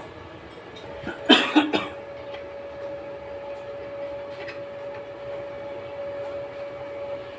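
A person coughs, a quick cluster of three or four sharp coughs about a second in, over a steady background hum.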